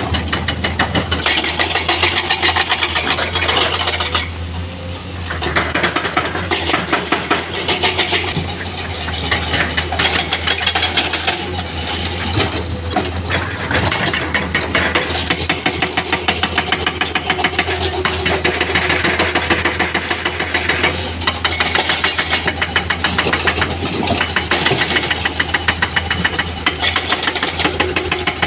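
Heavy-equipment diesel engine, dump truck or excavator, running steadily with a rapid, even chatter of firing strokes. A single sharp knock comes about twelve seconds in.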